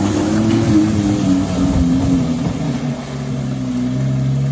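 Lowered Volvo estate's engine revving hard, its pitch rising and falling, as the car drives fast through a muddy puddle and throws up water from its tyres.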